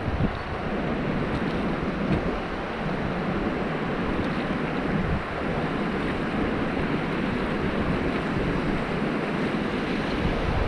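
Steady rush of fast-flowing river water around a raft, with wind noise on the microphone.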